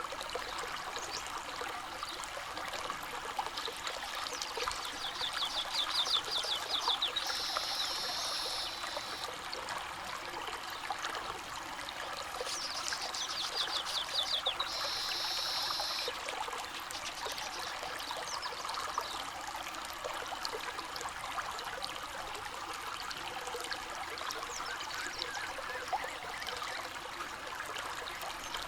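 River water trickling and flowing steadily over stones. A small bird sings the same phrase twice, a quick run of high notes ending in a buzzy trill, about five and thirteen seconds in.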